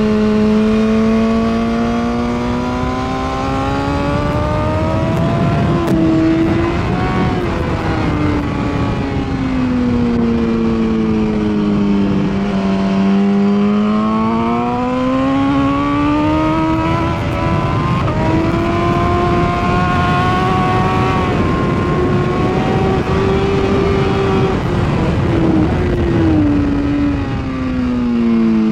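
2016 BMW S1000RR's inline-four engine at full race pace, heard from the bike: its pitch climbs for the first six seconds with a quick gearshift step, sinks through a long braking stretch, then climbs again, holds high, and falls near the end after another quick step.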